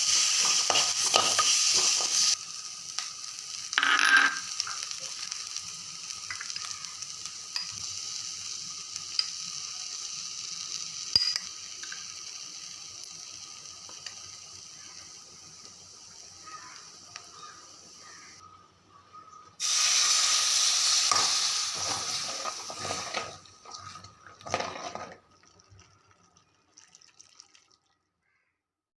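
Food sizzling in hot oil in a cooking pan while being stirred, most likely the ginger-garlic paste frying. The sizzle is loud at first and fades, stops briefly, comes back loud about two-thirds of the way through, and dies out after a few clacks near the end.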